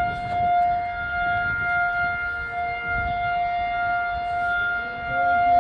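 Outdoor civil-defense tornado siren sounding one steady, unwavering tone, its level swelling and fading slightly. It is being sounded as a tornado awareness test.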